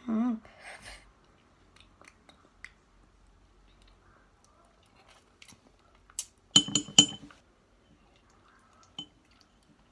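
A brief wavering hum from a girl tasting jam off a spoon, then a quick cluster of sharp clinks about six to seven seconds in, and one more near the end: metal spoons knocking against glass as yogurt and jam are spooned into the blender.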